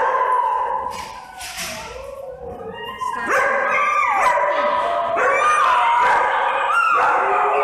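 Small dog barking and howling in drawn-out calls that slide in pitch. There is a short lull about a second in, then the calls run almost without a break from about three seconds in.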